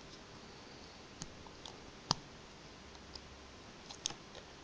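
Faint, scattered small clicks and taps as the leftover potentiometer leads on a 9g micro servo are bent out of the way; the sharpest click comes about two seconds in, with a quick pair near the end.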